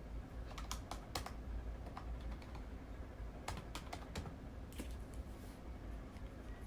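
Keys tapped in a few short, quick runs of clicks, over a faint steady low hum.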